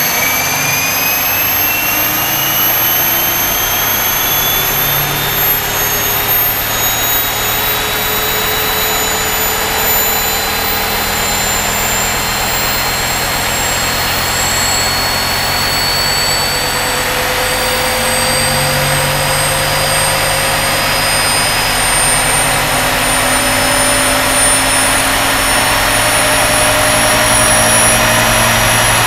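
Large radio-controlled EC135 model helicopter's turbine engine running on the ground, with its whine rising slowly and steadily as the main rotor turns and spins up.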